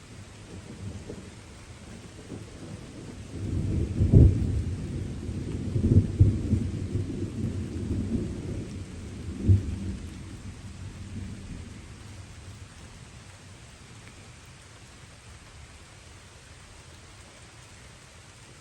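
Thunder rolling over steady light rain: a low rumble builds about three seconds in, peaks in several cracks over the next few seconds and dies away, leaving only the rain's even hiss.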